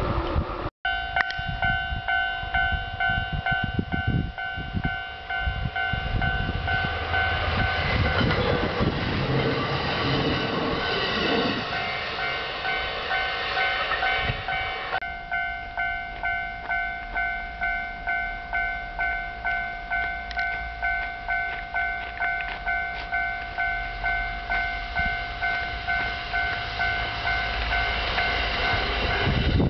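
Level-crossing warning bell ringing steadily with two tones, about two strokes a second. A Kintetsu electric train rushes past through snow over the first several seconds with a heavy rumble and rush that fades away. Near the end, another train's rumble builds as it approaches.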